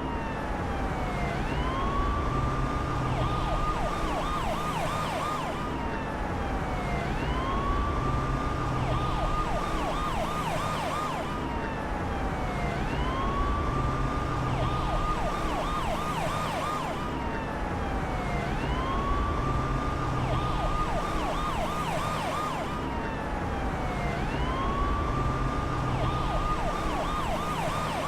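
Emergency vehicle siren cycling over and over, about every six seconds: it rises and holds a long wail, breaks into a quick run of rapid up-and-down yelps, then falls away and starts again, over a steady low rumble.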